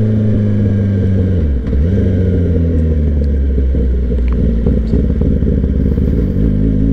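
Suzuki GSX-R sport bike's inline-four engine running steadily at low revs under way. The revs dip briefly about a second and a half in, then pick back up.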